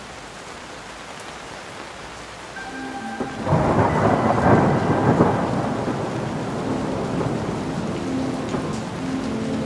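Steady rain, then a long rumble of thunder that sets in about three and a half seconds in, loudest over the next two seconds, and carries on under the rain.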